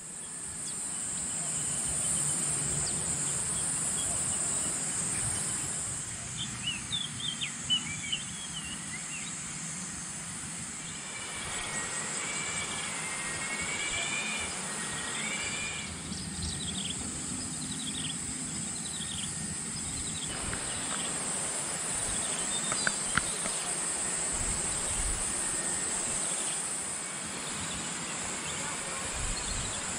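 Steady high-pitched chorus of insects in a tropical forest, with birds chirping and warbling at intervals over it.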